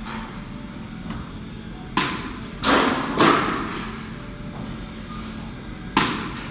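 Thuds of baseballs striking during a throwing drill: four sharp hits, at about two seconds, twice more within the next second and a half, and once near the end, each with a short echo.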